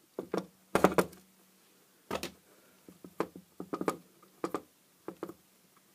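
Irregular clicks and knocks of pliers and small metal parts being handled against an aluminium LED floodlight casing, a dozen or so short taps, the loudest about a second in and just after two seconds.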